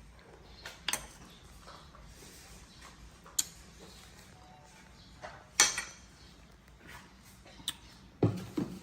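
Scattered light clicks and knocks, a few seconds apart, the loudest about five and a half seconds in, with two duller thuds near the end.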